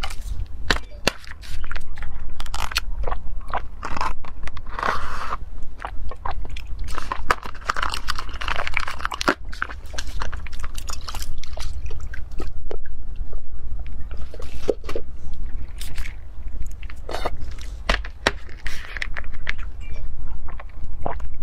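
Plastic bubble tea cups being handled and opened over a glass bowl of black rice: many sharp clicks and crackles, with two longer stretches of noise about five and eight seconds in.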